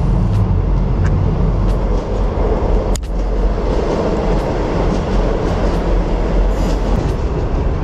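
Train passing, heard as a steady loud noise without a break, with a few sharp light clicks over it.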